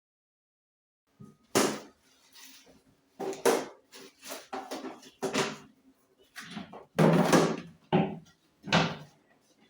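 Kitchen handling noises: an irregular series of knocks, clatters and rustles, as filled plastic zip-lock bags of vegetables are moved about and set down. It starts about a second in, after silence.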